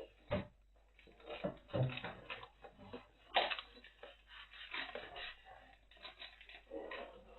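Plastic toy packaging being handled and cut with scissors: scattered short clicks, snips and crinkles.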